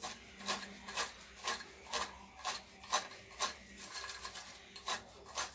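Crispy fried potato cubes tossed in a ceramic bowl, a rattling swish about twice a second.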